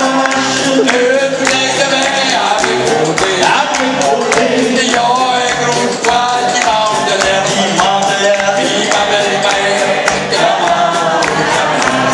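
Men singing a song in French, accompanied by a strummed acoustic guitar with a steady beat, performed live through a PA.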